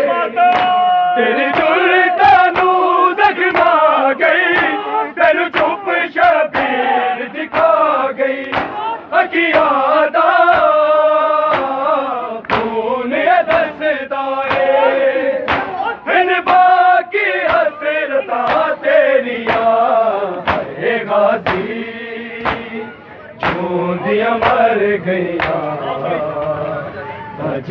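Shia mourners performing matam: a chorus of men chanting a lament over a steady beat of sharp open-hand slaps on bare chests.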